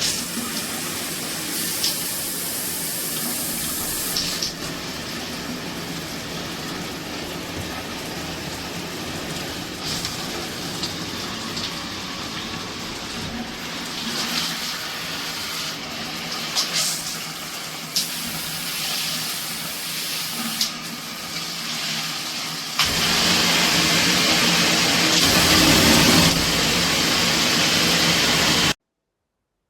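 Shower head spraying water in a steady hiss, louder for the last few seconds, then cutting off suddenly.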